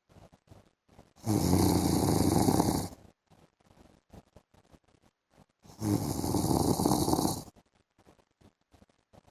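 A man snoring: two long snores, each lasting under two seconds, about four and a half seconds apart, with quiet between them.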